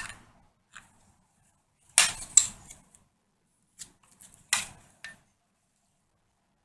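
A few sharp metallic clinks and knocks from metal drill press parts being handled and set against each other, the loudest pair about two seconds in, with silence between.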